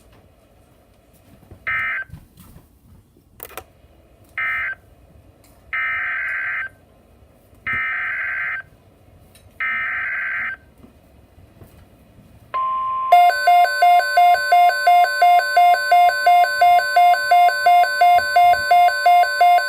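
NOAA Weather Radio EAS/SAME digital data bursts: two short screeching bursts, then three about a second long, marking the end of one alert and the header of the next. About 12.5 s in, the steady 1050 Hz weather-radio warning alert tone starts, and a pulsing electronic alarm beeping about three times a second soon joins it.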